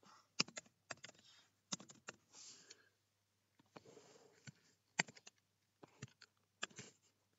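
Computer keyboard keystrokes and mouse clicks, sharp and irregular, a few at a time with short pauses between, as code is typed and edited.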